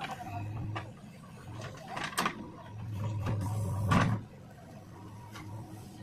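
JCB 3DX backhoe loader's diesel engine working under load as the backhoe digs and lifts soil. The engine swells twice, with sharp metallic knocks about two seconds in and about four seconds in, the second the loudest, after which the engine settles to a quieter steady hum.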